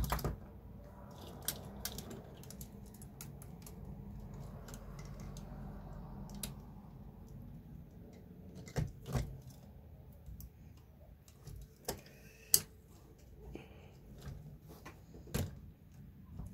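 Scattered small clicks and rattles of hard plastic and metal parts as a drag link is fitted to a Traxxas TRX-4 RC crawler's chassis. The sharpest snap comes about twelve seconds in.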